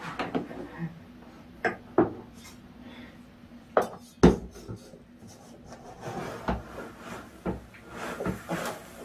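Plastic litter scoop scraping and digging through cat litter in a litter box, with scattered clicks and knocks of the scoop against the box; the sharpest knock comes about four seconds in.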